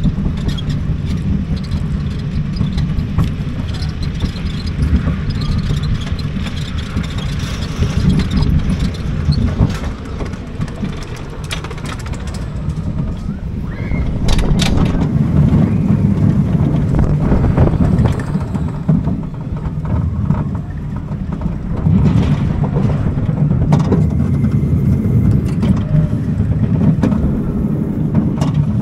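Gerstlauer bobsled roller coaster car climbing the lift hill with a steady low rumble and clatter, then running down the track, its wheels rumbling louder from about halfway through.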